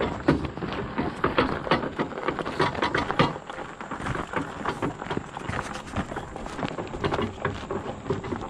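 Loaded hand-pushed wagon rolling over a gravel lot, its wheels crunching and rattling over loose stones, mixed with footsteps on gravel.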